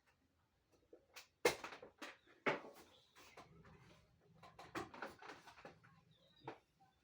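Sharp clicks and knocks of a refrigerator being handled as it is switched off and on again, the loudest about one and a half seconds in and again a second later, followed by a faint low hum from about three seconds in.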